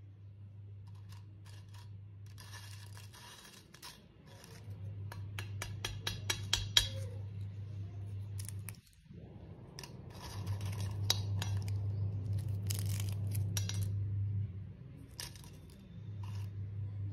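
Crisp fried green-banana chips crackling and crunching in two spells of quick, dense crackles, over a low hum that comes and goes.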